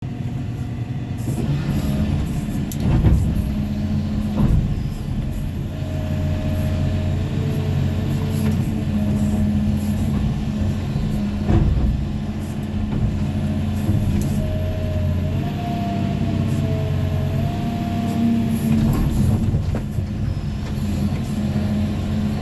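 Excavator's diesel engine running steadily under load, with a hydraulic whine that glides up and down in pitch and a few sharp knocks along the way.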